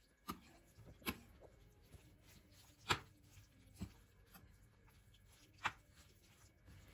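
A metal utensil stirring chopped greens through a lentil and bulgur mixture in a glass baking dish: soft rustling with about five sharp clicks of the utensil against the glass, the loudest about three seconds in.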